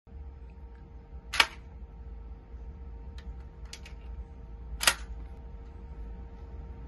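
Tellioğlu shotgun's action being worked by hand: two sharp metallic clacks about three and a half seconds apart, with a few lighter clicks between them, over a steady low hum.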